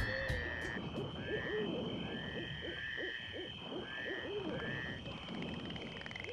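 Animal calls: a string of short, arching high calls repeating about once a second, lower warbling calls beneath them, and a steady high drone.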